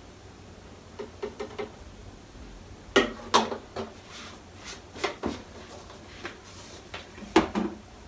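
Plastic laundry bottles being handled: a few light clicks of a cap being closed, then louder knocks and clatter as the bottles are set down in a plastic laundry basket.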